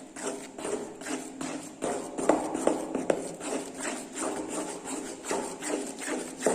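A utensil stirring a thick, sticky mix of toothpaste and glue in a container, knocking against the side about two to three times a second.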